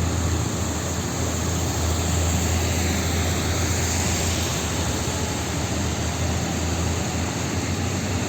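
Road traffic in heavy rain: a steady low engine drone under an even hiss of falling rain and wet road.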